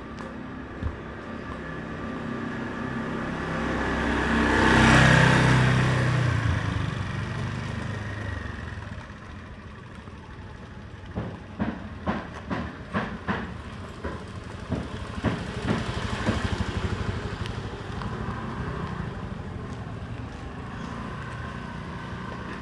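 A motor vehicle passes close by, growing louder for a few seconds and then fading away. Later comes a run of irregular sharp knocks and clatters lasting several seconds.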